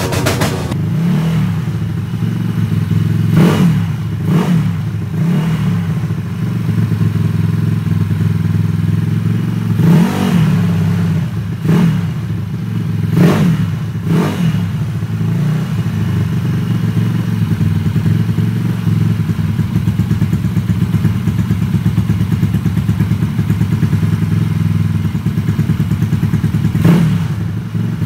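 Custom stanced scooter's small engine idling with a steady hum, blipped on the throttle about nine times, each a quick rev up and straight back down. The blips come in a cluster in the first few seconds, another around ten to fourteen seconds in, and once more near the end.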